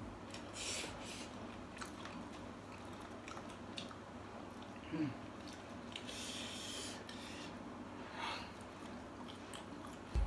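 Faint rustling and crinkling as smashed fried chicken (ayam geprek) is picked apart by hand in a paper takeaway box, with quiet chewing. A short, low, falling vocal sound about halfway through.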